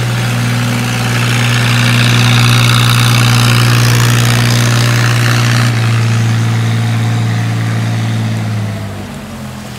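Engine of a wooden river cargo boat running hard as it passes close by: a steady low drone with the rush of its wake over the water. The rushing falls away about six seconds in, and the drone fades near the end.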